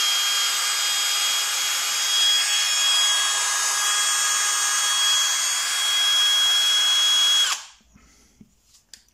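Parkside Performance X12V cordless brushless drill/driver running at no load with a bit in the chuck, a steady motor hum with a high whine on top. It stops suddenly about seven and a half seconds in as the trigger is released.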